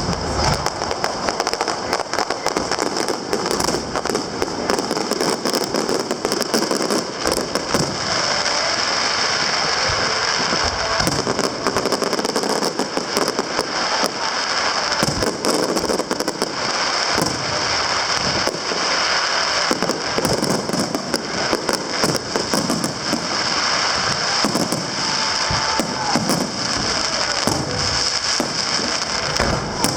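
Aerial fireworks display: a dense, unbroken barrage of shell bursts and crackling, going on steadily.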